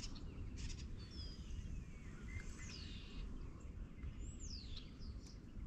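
Birds calling over a steady low rumble of outdoor background noise, including two clear high whistles that slide downward, about two and a half and four seconds in.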